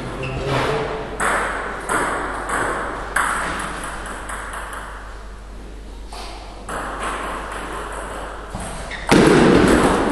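Table tennis ball clicking against bats and table, a string of sharp knocks that ring in the hall, several in the first three seconds and again from about seven seconds in as a rally gets going. A much louder burst of noise comes in about nine seconds in.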